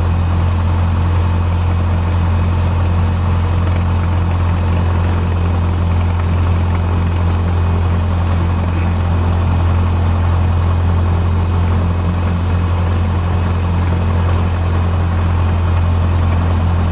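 Cessna 172's four-cylinder piston engine running steadily at low power, an even low drone with no change in speed.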